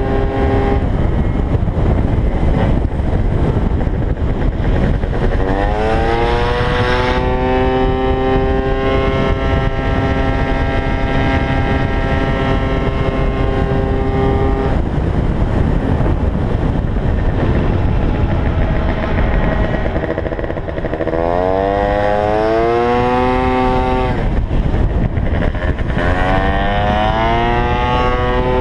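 Gilera Runner FX scooter's 172 cc two-stroke engine under full throttle on track, heard from the rider's helmet camera with heavy wind rumble. Its pitch climbs quickly about six seconds in and holds high, drops off around fifteen seconds in as the throttle closes, then climbs again twice in the second half.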